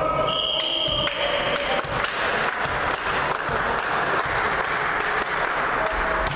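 Referee's whistle in a volleyball match: one steady, high blast lasting about a second and a half near the start. Echoing hall noise and scattered thuds follow.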